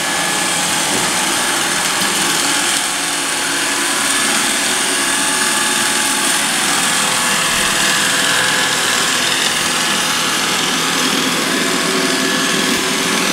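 iRobot Roomba robot vacuum running on a hardwood floor: its suction fan and brushes give a steady whir with a constant whine.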